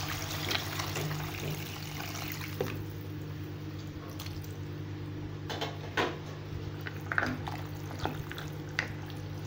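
Water poured into a pan of browned pasta and tomato, a steady pour that stops about two and a half seconds in. Then a wooden spoon stirs the pan, with a few knocks against its side, over a steady low hum.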